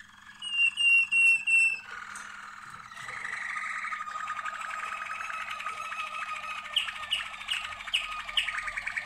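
Caged domestic canaries singing. A few loud, clear repeated notes come first, then a continuous rolling trill, with several sharp high notes near the end.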